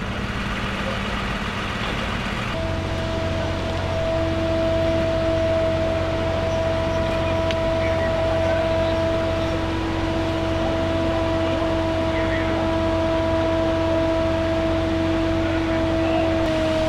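A motor running at a steady speed: a constant low hum with a steady whine over it. About two and a half seconds in it switches abruptly to this from a rougher engine idle.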